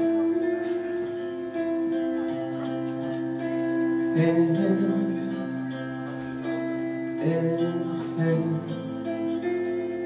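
Live band playing an instrumental stretch of the song between sung lines: electric guitar chords ringing over a stepping bass line, with a couple of light cymbal touches.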